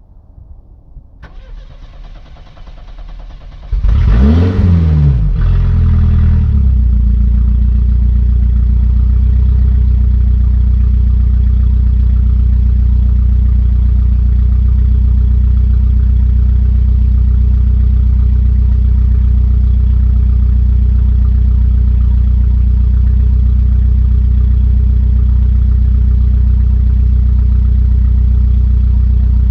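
Volvo 240 engine with its exhaust cut off ahead of the catalytic converter being started: cranking builds from about a second in, the engine catches loudly about four seconds in and revs up and back down twice, then settles into a steady idle.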